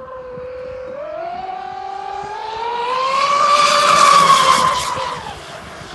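High-speed RC racing catamaran (Exocet 150) running on a 12S electric drive, an SSS 56104 880KV brushless motor turning a surface propeller: a pitched whine that climbs in pitch as the boat speeds up and comes closer. It is loudest, with a hiss of spray, as it passes close about four seconds in, then drops in pitch and fades as it moves away.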